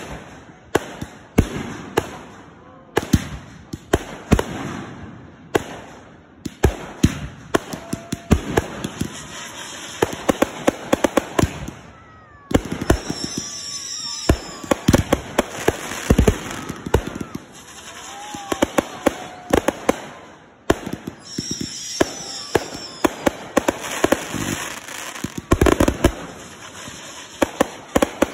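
Consumer aerial fireworks going off in rapid succession: a dense string of sharp bangs and crackling bursts as shots launch from the ground and break overhead. There is a brief lull about twelve seconds in before the shots pick up again.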